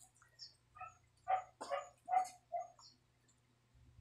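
Eating noises of a person chewing saucy chicken from the hand, with small wet mouth clicks. Four short pitched animal calls come in quick succession, starting about a second in, and are the loudest sounds.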